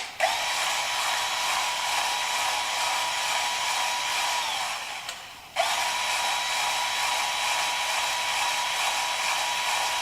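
A power tool runs with a steady airy hiss and a whine. About five seconds in its pitch sags and it stops, then it starts again half a second later.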